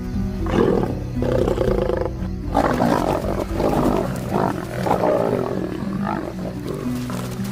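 Lions snarling and growling in a scuffle as a lioness turns on adolescent lions, over background music with held notes. The snarls come in rough bursts from about half a second in, pause briefly, then run again for several seconds and ease off near the end.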